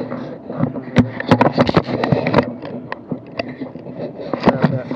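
Irregular knocks and clicks in quick clusters, densest in the first half, over a faint steady hum.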